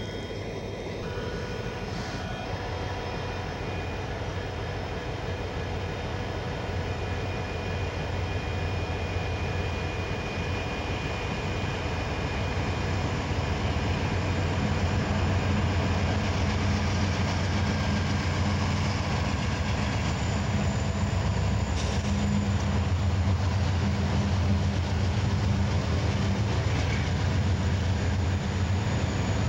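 Diesel freight locomotive running with a steady low drone as a freight train rolls by, growing gradually louder.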